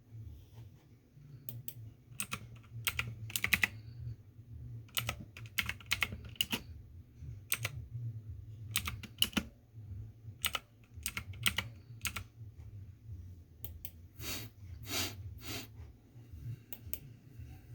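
Typing on a computer keyboard: irregular key clicks in short runs with pauses between them, over a low steady hum.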